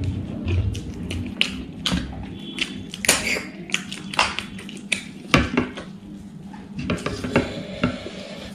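Irregular light clicks and clinks of fingers and food against a stainless steel plate as rice is mixed by hand, a few each second, thickest about three seconds in.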